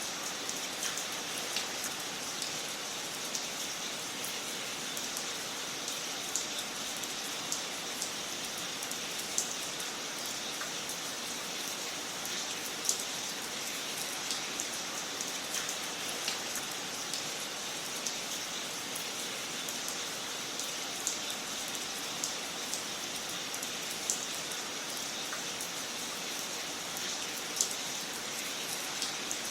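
Wood fire crackling in a fireplace: a steady hiss dotted with frequent, irregular sharp pops and snaps.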